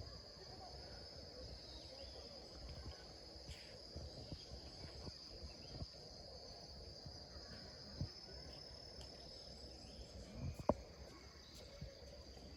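Steady, continuous high-pitched chirring of autumn insects, over a low background rumble. A sharp knock comes about ten and a half seconds in.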